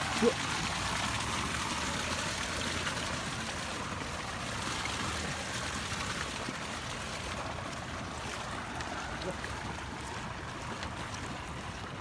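Steady rush of water, fading somewhat in the second half.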